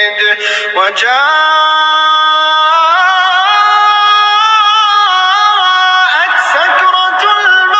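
Music with a singing voice holding long, drawn-out notes that step up and down in pitch, sliding up about a second in and wavering more toward the end.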